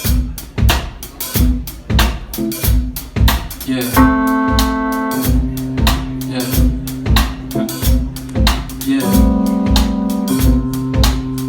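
Live band playing an instrumental intro: a steady drum-kit beat, with held keyboard chords coming in about four seconds in and changing about nine seconds in.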